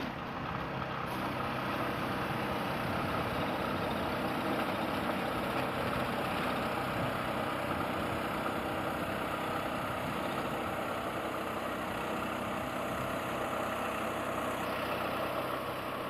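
Honda GX390 single-cylinder OHV engine running steadily, driving a portable band sawmill's blade through a log. The engine note and the cutting noise hold even throughout.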